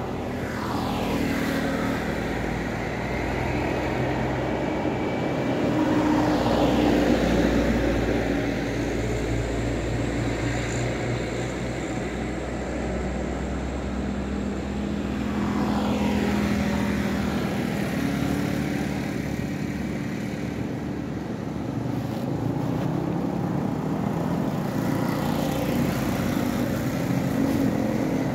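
Road traffic: vehicles pass by several times, each one a falling sweep of engine and tyre noise, over a steady low engine hum.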